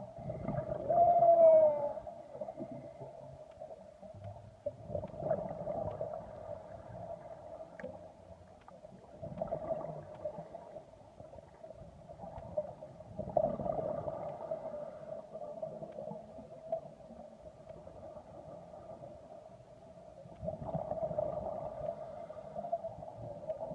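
Underwater sound: a steady hum with rushing swells every few seconds, the pattern of a diver's regulator breathing and exhaled bubbles. A short falling tone comes about a second in.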